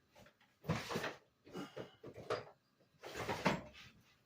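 Objects being picked up and shifted about by hand: a few separate rustling and scraping handling noises with light knocks, as a small wooden strop block is fetched.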